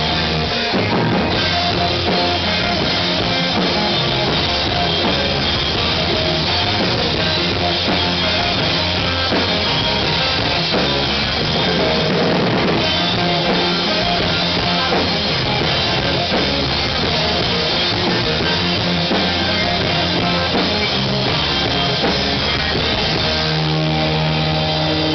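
Rock band playing live, loud and continuous: electric guitars, bass guitar and drum kit, with a keyboard in the band. Near the end the playing shifts to long held low notes.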